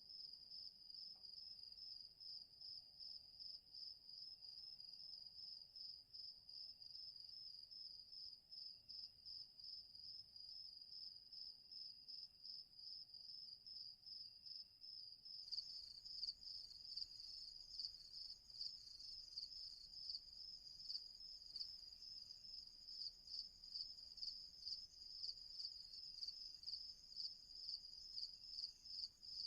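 Crickets chirping in a steady high trill. About halfway through, a second, slightly higher chirping layer joins and the sound takes on an even pulsing rhythm.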